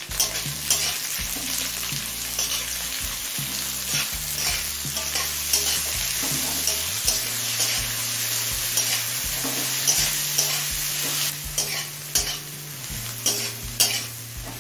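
Chopped onions sizzling in hot mustard oil in a kadai while a spatula stirs them, scraping and tapping against the pan again and again.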